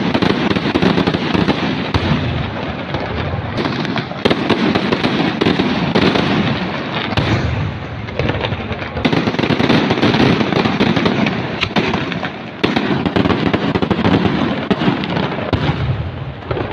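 Dense barrage of fireworks, a continuous crackling of many small bursts that swells in waves every few seconds.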